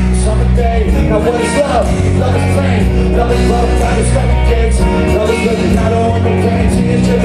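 Live concert music with singing, a rock song played loud and recorded from within the audience.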